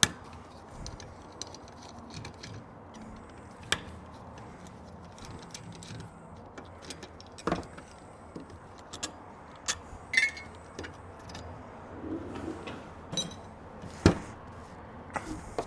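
Scattered light clicks and clinks of small metal carburetor parts and hand tools being handled during the teardown of a Carter AFB four-barrel carburetor, with a few sharper knocks among them.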